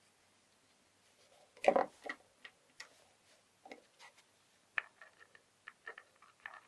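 Scattered light clicks and taps with one louder knock about two seconds in: small metal lock parts and an oil can being handled on a workbench, ready for oiling an opened GU multipoint lock's follower and gears.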